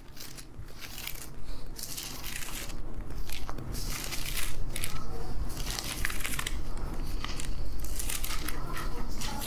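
Irregular rustling and crinkling of paper pages as a Bible is leafed through to find a verse, with a low rumble of handling noise coming in about a third of the way through.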